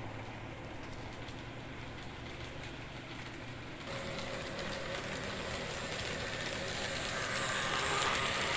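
Model trains running on layout track: first a steady low motor hum, then from about four seconds in a model freight train's wheels clicking rapidly over the rail joints under a steady motor whine, growing louder as the train comes close.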